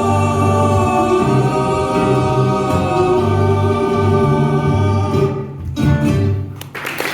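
A live band's closing chord: several voices hold a sung harmony over bass and guitar, breaking off about five and a half seconds in with a brief last note after.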